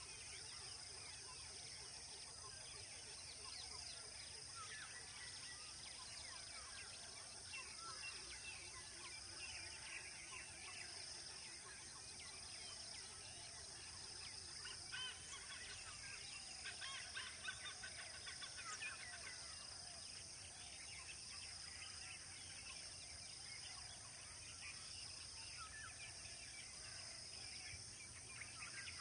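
Faint wild birdsong: many short chirps and calls, busiest in the middle, over a steady high-pitched insect drone.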